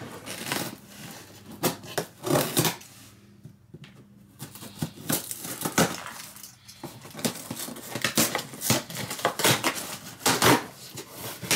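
A cardboard shipping box being opened and handled by hand: a run of irregular scrapes, rustles and knocks, with a few sharper louder ones.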